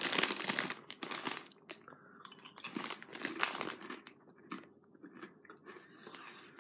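Crunchy Arnott's Shapes crackers being bitten and chewed. Loud crisp crunches in the first second or so, then sparser, fainter chewing.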